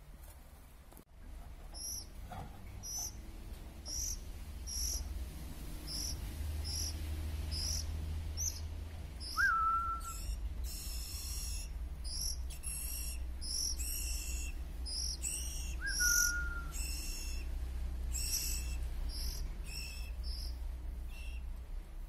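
Songbird nestlings giving thin, high-pitched begging calls. At first they come in a regular series of about two a second, then they thicken into a rapid, dense chorus about halfway through. Two short whistled notes, each with a quick upward flick, sound over them.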